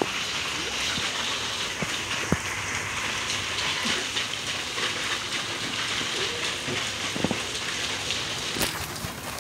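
Steady hiss of water spray falling like rain onto the pool and wet pavement, with a few short splashes. Near the end the hiss drops away.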